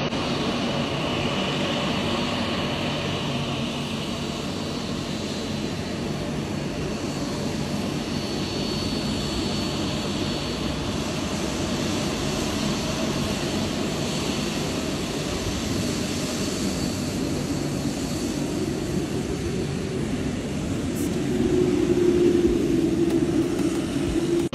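Jet engines of a taxiing Boeing 787 airliner, a steady rushing engine noise. A low, steady hum swells and grows louder about three seconds before the end.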